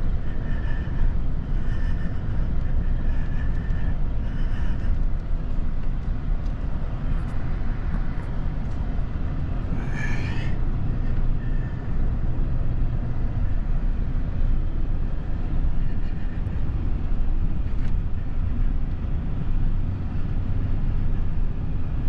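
Steady low rumble of a running vehicle, with a brief high-pitched squeak about ten seconds in.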